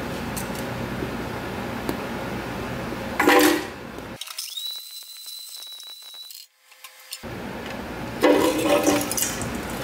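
Hammer blows on a computer circuit board: two loud, sudden strikes about three seconds and eight seconds in, with a few light clicks before them. Between the blows the sound thins out, leaving a faint steady high tone.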